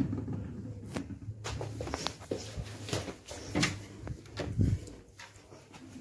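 A string of sharp knocks and clunks close to the microphone over a steady low hum.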